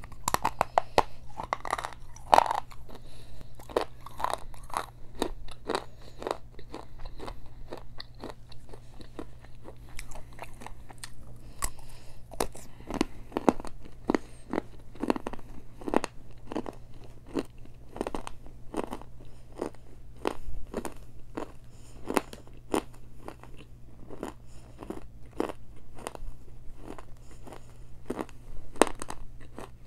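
Close-miked biting and chewing of a hard, crunchy Mexican clay pot treat: a bite at the start, then a steady run of sharp crunches, about one or two a second, with a low steady hum underneath.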